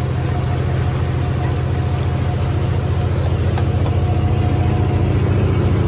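A riverboat's engine running steadily with an even, low hum while the boat is under way.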